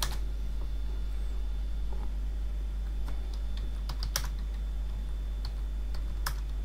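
A few separate computer keyboard keystrokes and clicks, spaced irregularly a second or so apart, over a steady low hum.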